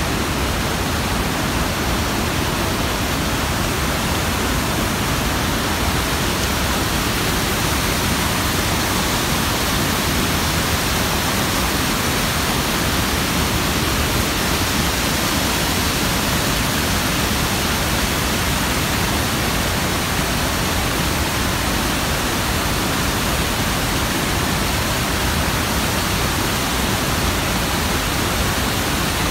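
Steady roar of Iguaçu Falls: river water rushing through rapids and pouring over the falls into the gorge, an even, unbroken rush of white noise.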